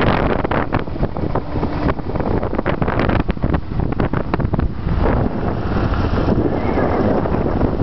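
Wind buffeting the microphone on a moving motorcycle, in gusts, over the bike's running engine and road noise.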